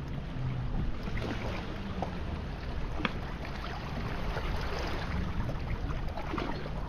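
Small waves lapping and splashing among shoreline rocks in shallow seawater, a steady wash with many small crackles, with wind rumbling on the microphone.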